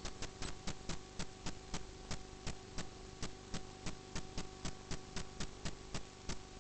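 Drain inspection camera rig giving an even, rapid ticking of about three to four clicks a second over a steady electrical hum.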